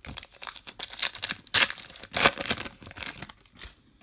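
Foil wrapper of a trading-card pack being torn open and crinkled: a dense, irregular run of crackling that stops shortly before the end.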